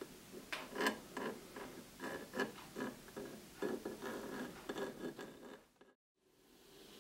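Close handling noise of gluing a foam surround onto a woofer: irregular crinkling, clicking and scratching as a crumpled metal tube of clear adhesive is squeezed and the foam is pressed along the speaker frame. The sound fades out shortly before the end.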